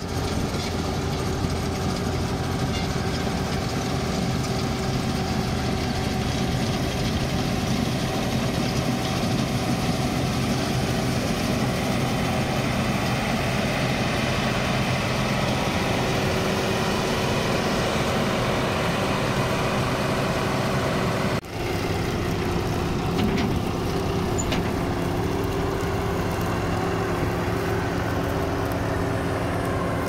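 Combine harvester working a wheat field: its engine and machinery run with a steady, loud drone. There is a momentary break about two-thirds of the way through, after which the drone goes on.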